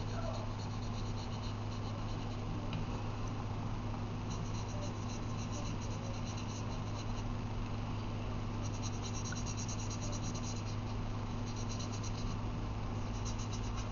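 Felt-tip marker nib scratching on paper in quick back-and-forth colouring strokes, coming in spells of a few seconds, over a steady low electrical hum.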